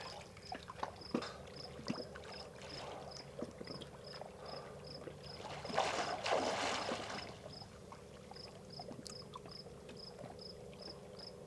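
Water sloshing and lapping, with small knocks and a louder swish of water about six seconds in, while an insect chirps steadily in a high pitch two or three times a second.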